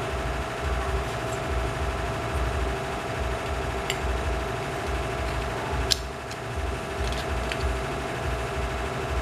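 Steady mechanical hum with a pulsing low throb from a machine running throughout. A few light metal clicks come through on top, as the electric fan motor's metal end housing is handled and fitted.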